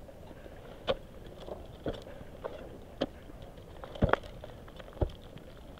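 Ice axes and crampons striking into hard, frozen snow as a climber moves up: a crunching thud about once a second, six or so strikes, two of them close together.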